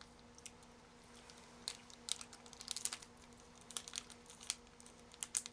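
Plastic snack packaging crinkling and clicking as it is handled: scattered short, irregular crackles.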